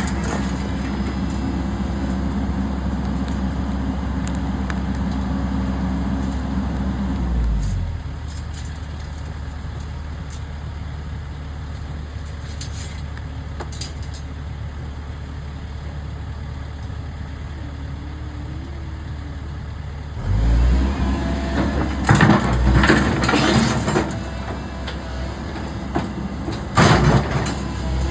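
Excavator diesel engine working at raised revs, dropping to a quieter idle about seven seconds in. It picks up again about twenty seconds in, with several sharp knocks and clanks near the end.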